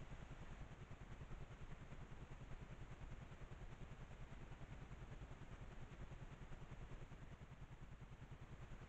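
Near silence: a faint, steady low hum and hiss with no distinct sounds.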